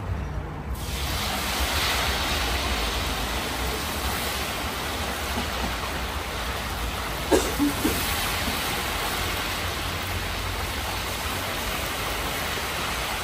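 Chunks of meat frying in deep hot oil in a large plov kazan, the first stage of cooking plov: a loud steady sizzle that sets in about a second in as the meat goes into the oil, over a low steady rumble. A couple of brief knocks come a little past the middle.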